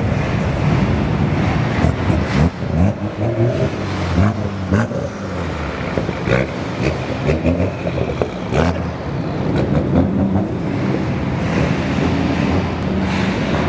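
A car engine running, its pitch stepping and bending a little as it revs lightly, under strong wind buffeting the microphone.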